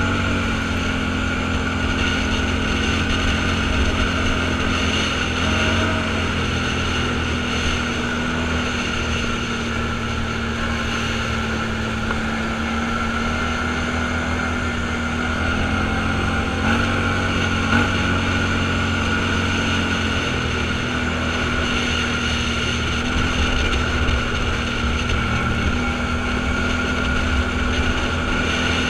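Off-road vehicle engine running at a steady speed, with small dips and rises in pitch a few times as it changes speed.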